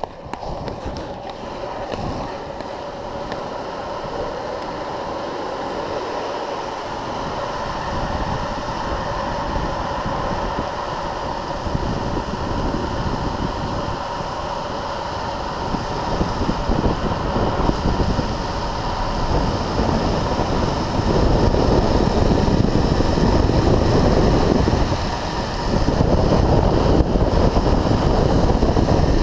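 Wind rushing over the microphone together with the rolling roar of longboard urethane wheels on asphalt at speed. It grows steadily louder, is loudest from about two-thirds of the way through, and dips briefly near the end.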